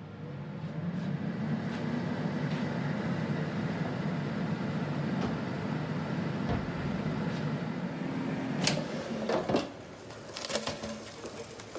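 Ninja dual-zone air fryer's fan starting up and running with a steady low whir as it begins air frying. Near the end it runs down, with a few clicks and knocks as the baskets are pulled out of the drawers.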